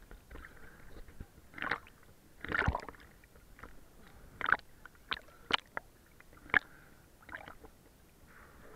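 Small sea waves splashing and sloshing against a handheld camera held at the water surface: a string of short, irregular splashes, about one a second.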